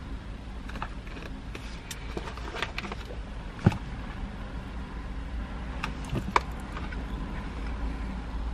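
Steady low rumble inside a parked van's cab, with paper rustling and two sharp clicks, one about a third of the way in and a louder one near the middle of the second half, as a paper takeaway bag is handled.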